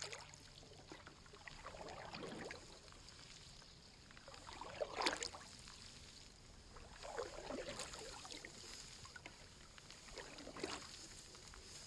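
Canoe paddle strokes in the water, faint: four strokes about every two and a half to three seconds, each a soft swish and splash, the second the loudest.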